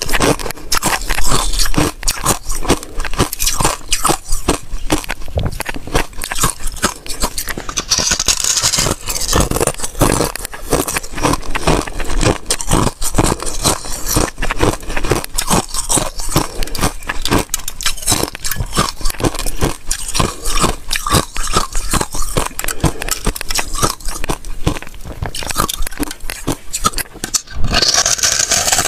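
Close-miked crunching of thin, brittle ice being bitten and chewed: a dense, unbroken run of sharp cracks and crackles.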